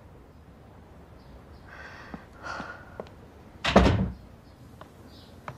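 A single loud thud about three and a half seconds in, short and heavy like a door or a solid object striking, over quiet room tone with a few faint soft sounds before it.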